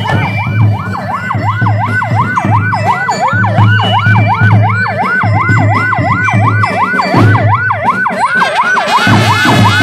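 Electronic siren in a fast yelp, sweeping up and down about four times a second without a break, over a low pulsing thump. Near the end, music comes in underneath it.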